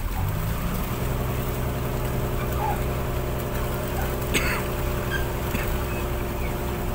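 Fishing boat's engine running steadily, a low hum with a held tone. About four seconds in comes a short splash as a thrown fish hits the water.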